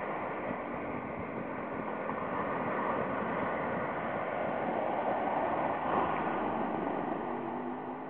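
Ocean surf breaking and washing up a sandy beach: a steady rushing that swells to its loudest between about three and six seconds in.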